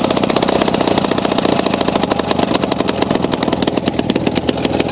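Engine-driven rock drill hammering fast and evenly into stone, breaking up a fallen boulder.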